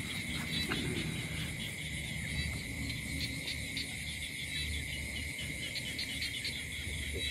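A night chorus of crickets and other insects trilling steadily at a constant high pitch, with a faint low rumble beneath.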